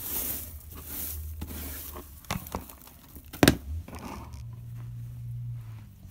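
Dry hay and wood-shaving bedding rustling and scraping as a dustpan and brush sweep the plastic floor of a guinea pig cage, with a few light clicks and one sharp knock about three and a half seconds in.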